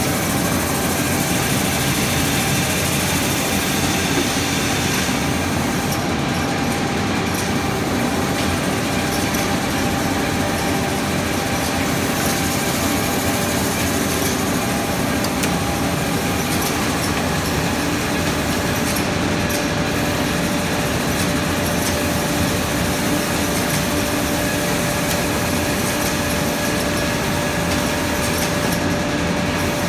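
Automated production-line machinery running steadily: a dense, continuous mechanical noise with a few steady held tones through it.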